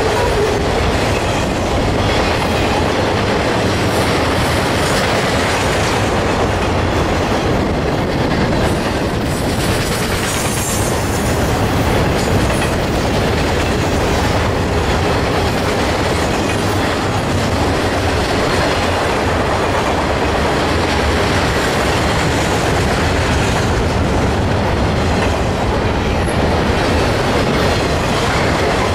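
Freight cars of an intermodal train, carrying highway trailers on flatcars and double-stack containers, rolling past loud and steady, with the rhythmic clickety-clack of wheels over rail joints.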